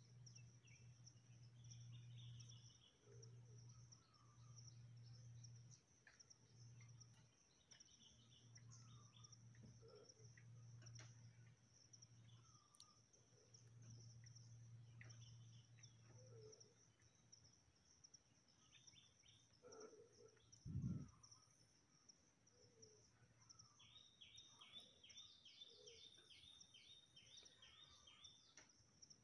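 Faint rural ambience: a steady high insect drone with scattered bird chirps, and a quick run of a dozen or so repeated bird chirps near the end. A faint low hum comes and goes underneath, with one soft thump partway through.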